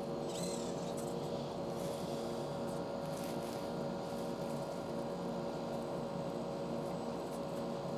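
Electric motor and gear drivetrain of an RC rock crawler running with a steady whine.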